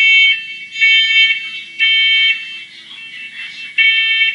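First Alert ONELINK smoke alarm sounding its test alarm: three loud, high-pitched beeps about a second apart, a pause, then the first beep of the next set. This is the standard three-beep evacuation pattern, set off here by pressing the test button.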